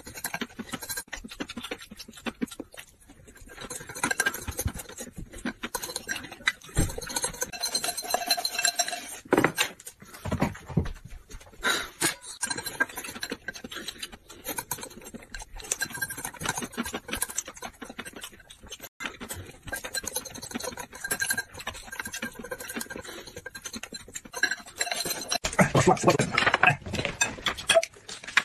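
Eating sounds: chopsticks clicking and scraping against a glass bowl, with chewing. Near the end comes a louder stretch of noodles being slurped.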